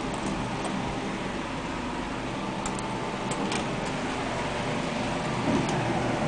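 Steady mechanical hum inside a 1980s Dover hydraulic elevator car, from its cab fan and running machinery, with a few faint clicks along the way.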